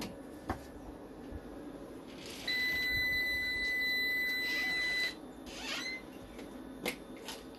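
A single steady electronic beep, high and even in pitch, lasting about two and a half seconds, with a few sharp clicks of plugs and cables being handled before and after it.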